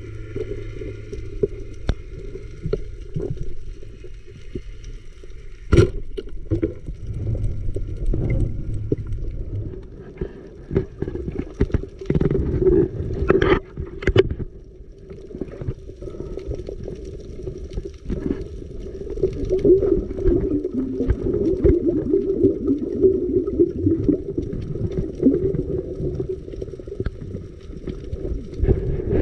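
Muffled underwater sound picked up by a submerged camera: a steady low rumble of water with scattered sharp clicks and knocks.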